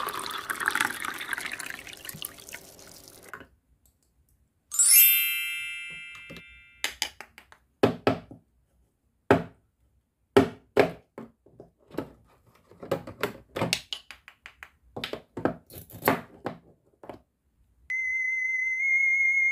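Toy water dispenser pouring water into its small plastic cup for a few seconds, then a bright chime. After that, a toy knife cuts toy fruit halves apart: a run of short clicks and knocks, in clusters. Near the end a steady high electronic tone with a slight wobble begins.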